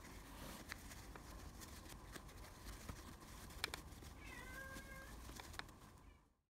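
Soft rustling and small clicks of cotton fabric being turned right side out by hand, with a faint animal call about four seconds in.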